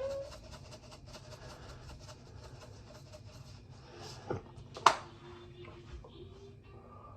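Faint kitchen handling noises: light ticking and two sharp clicks about four and five seconds in, the second the loudest, as a container is handled while a dish is seasoned.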